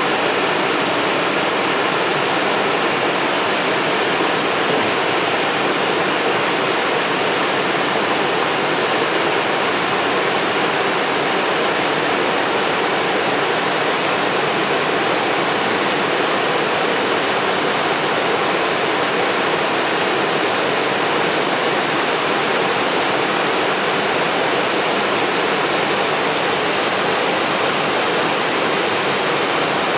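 Waterfall cascading over rock ledges: a steady, unbroken rush of falling water.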